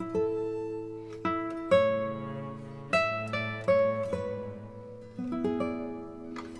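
Background music: acoustic guitar picking single notes that ring and fade, a new one every half second to a second.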